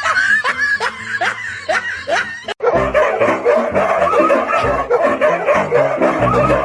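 A person laughing in short rising snickers, about three a second. About two and a half seconds in it cuts off suddenly, and background music with a steady beat takes over.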